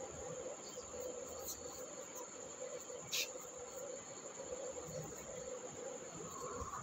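A steady, high-pitched insect-like trill, with a faint lower hum under it and one short sharp click about three seconds in.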